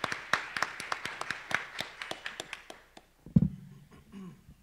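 Applause: a room of hands clapping after a talk, thinning out and stopping about three seconds in. Then a single loud thump through the microphone, as it is handled at the podium.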